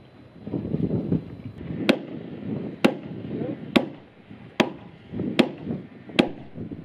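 Mallet knocking a timber frame post into place: six sharp strikes at a steady pace, a little under one a second.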